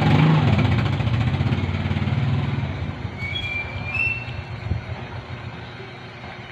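Motor vehicle engine running, loudest at the start and fading away over a few seconds as it passes. A few short high chirps come about three to four seconds in.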